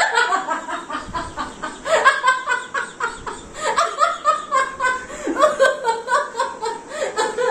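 A woman and a man laughing hard together, in quick repeated ha-ha pulses.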